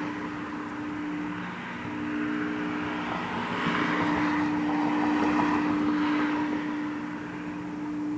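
An unexplained steady hum made of a few constant low tones, a long siren-like drone. A rushing noise swells about three seconds in and fades a few seconds later.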